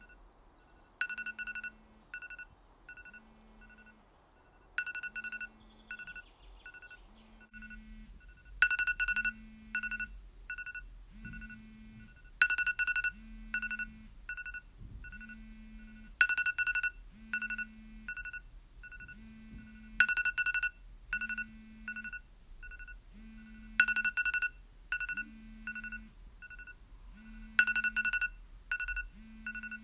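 iPhone alarm going off: a high electronic beeping phrase repeating about every four seconds, with smaller pips in between. Under it a low buzz pulses about every two seconds, the phone vibrating against the wooden table.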